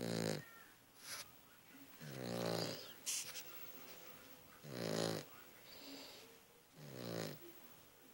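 Cavalier King Charles spaniel puppy snoring in her sleep: four pitched snores, one every two to two and a half seconds, with a couple of short, sharp snuffs between them.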